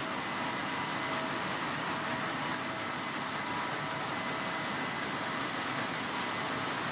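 Case combine harvester running steadily while harvesting barley: an even mechanical rush with faint steady whining tones over it.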